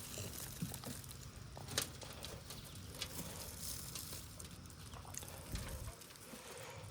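Hands pushing and peeling back loose potting soil while searching for potatoes, a quiet rustling of dirt with scattered soft clicks and taps.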